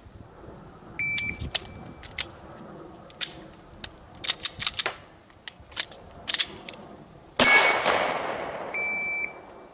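Shot-timer beep, then about six seconds of sharp clicks and clacks as a Glock 17 pistol-caliber SBR is worked through a stuck-case malfunction clearance (dead trigger, magazine ripped out, slide racked, magazine reinserted), then a single 9mm shot with a ringing echo that fades over a second or so. A second short beep sounds near the end.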